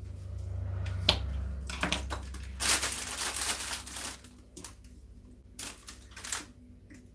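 Handling noises as floral foam blocks are fitted into a basket lined with plastic foil: crinkling and rustling of the foil, loudest for a second or so near the middle, with a few light knocks and clicks around it.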